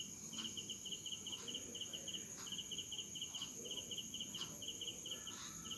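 Cricket chirping steadily: high, rapid pulses in short groups, repeating without a break, with faint clicks about once a second.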